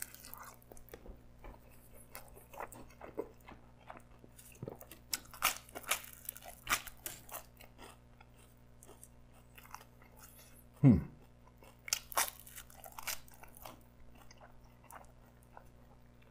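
Close-miked chewing of crusty pizza crust: crisp crunches and wet mouth sounds at irregular intervals. About two-thirds through comes a brief low vocal sound that falls in pitch.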